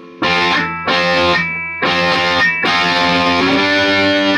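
Distorted electric guitar played through a Marshall JCM 2000 Dual Super Lead valve amp on its ultra gain channel with the reverb switched off: three short chords, then a chord left ringing.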